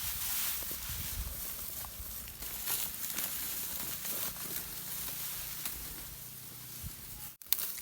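Continuous dry rustling with scattered light clicks and ticks. It cuts out abruptly near the end.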